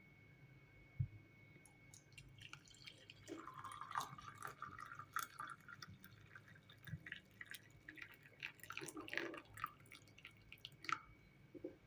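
Hot water poured into a cup, faint: a thin trickling stream about three seconds in, among scattered drips and small ticks.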